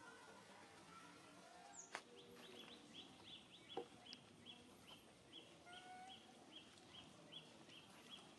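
Faint outdoor ambience with a short high chirp repeating steadily about three times a second, starting about two seconds in, and two sharp clicks.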